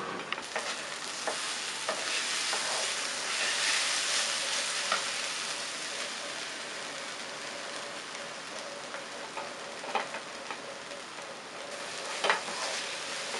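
Chopped nendran banana peel sizzling in hot coconut oil in a pan, loudest a few seconds in, as a ground coconut and onion mix is tipped in and stirred. A spatula scrapes and taps against the pan throughout, with a few sharper knocks near the end.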